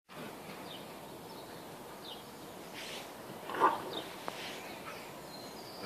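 A dog gives one short bark about three and a half seconds in, over faint high bird chirps now and then.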